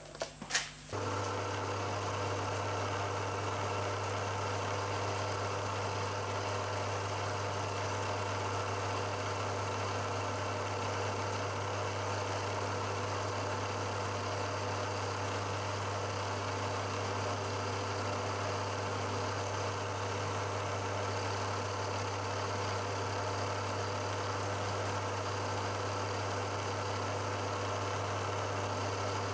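Milling machine starting up about a second in and then running steadily, its end mill milling the bevelled edge of a brass clamp jaw.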